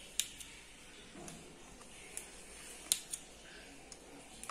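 Serrated steel knife cutting through soft steamed milk pudding in a steel pan, its blade clicking sharply against the pan's base and rim about six times at uneven intervals over a faint background hiss.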